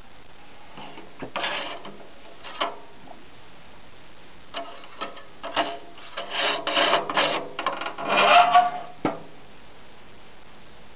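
A postcard being handled in the card holder of a postcard projector: a run of rubbing and scraping of card against the holder, with small clicks, loudest about eight seconds in. It ends with a single sharp clack just after nine seconds.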